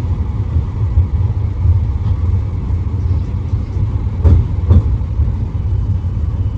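Steady low rumble inside a standing tram, with two dull thumps about half a second apart a little over four seconds in.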